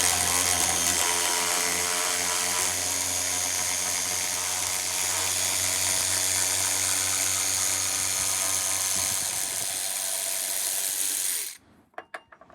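DeWalt DCS510 cordless sealed-head ratchet running steadily in reverse, backing out a lag screw that was first broken free by hand. The motor stops suddenly near the end, followed by a few light clicks.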